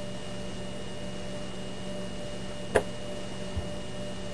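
Steady electrical hum of room tone, broken by one short click about two-thirds of the way through and a faint low thump soon after.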